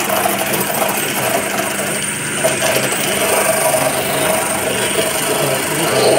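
Hand-held buffing machine running, its abrasive wheel grinding the tread rubber. This roughens the rubber so that it will bond in retreading. A steady motor hum carries a higher whine that swells and dips as the wheel bears on the rubber.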